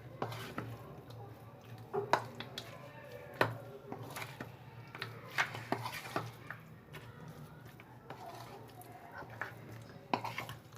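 Irregular clinks and knocks of a utensil against a bowl while chicken is being mixed with its marinade, over a low steady hum.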